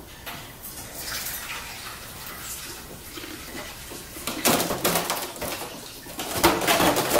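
A baby cooing and squealing, the louder squeals about four and a half and six and a half seconds in, over water running at a kitchen sink.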